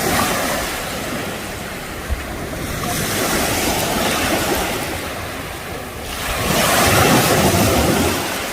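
Sea waves washing onto a beach, swelling and fading in about three surges, the loudest near the end, with wind buffeting the microphone. A single brief knock about two seconds in.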